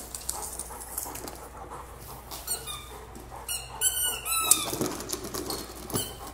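Squeaker in a K9 Cruiser sliding dog toy squeaking as a golden retriever noses and pushes it across a tile floor: a short squeak about two and a half seconds in, then a quick run of louder squeaks around four seconds in, with a few light knocks of the toy.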